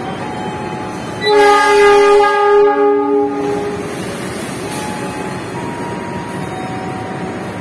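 A diesel locomotive's horn sounds one blast about a second in, lasting about two seconds, over the steady running of diesel locomotives standing at the platform.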